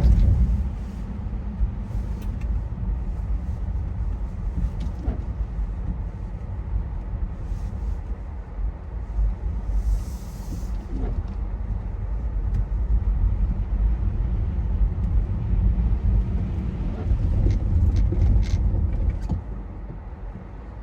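Low, unsteady rumble of a moving car, with a few scattered clicks and a brief hiss about ten seconds in.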